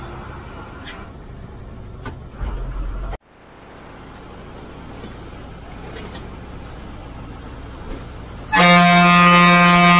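TNSTC bus running, heard from the driver's cabin, with a heavier low rumble about two and a half seconds in that cuts off abruptly and then fades back up. Near the end the bus's horn sounds one loud, steady blast lasting about two seconds.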